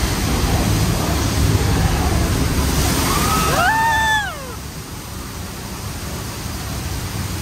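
Rushing water of a flash-flood ride effect, a torrent gushing down and splashing over the ride tram. Near the middle a person gives one short cry that rises and falls, and the rush then drops to a quieter splashing.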